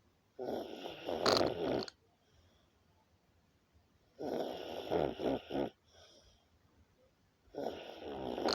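A sleeping person snoring: three snores, each about a second and a half long and coming roughly every three and a half seconds, with faint breathing between them.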